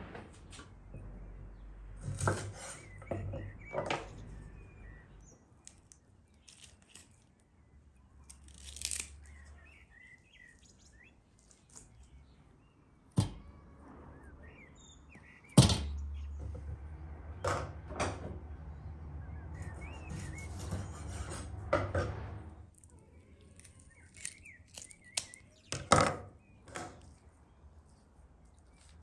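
Scattered knocks and thunks of food preparation as raw chicken drumsticks and kitchen utensils are handled, with small birds chirping now and then. A stretch of steadier noise with a low rumble runs through the middle.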